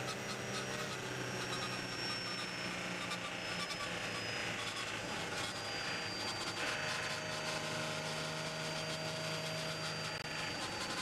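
In-car sound of the Audi R18 e-tron quattro's V6 turbodiesel running at speed on a wet track, over a constant hiss of tyres and spray. A high whine slowly falls in pitch.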